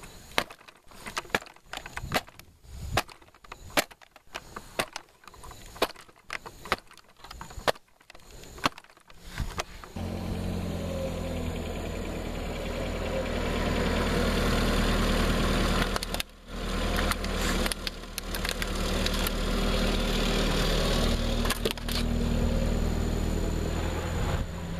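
Repeated sharp thumps, about two a second, as a foot stomps on a Toshiba laptop's plastic case. About ten seconds in, a vehicle engine starts running steadily at idle and keeps on.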